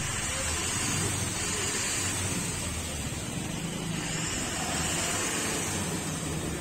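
A car engine running steadily at low speed: a low, even hum with road noise and no sharp events.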